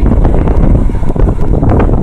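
Strong wind buffeting the microphone: a loud, rough low rumble with scattered crackles.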